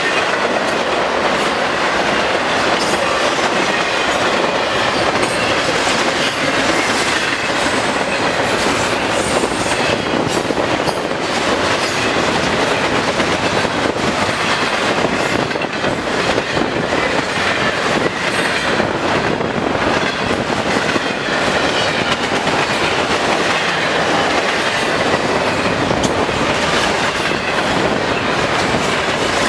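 Cars of a long intermodal freight train rolling steadily past at speed, the wheels clicking over the rail joints.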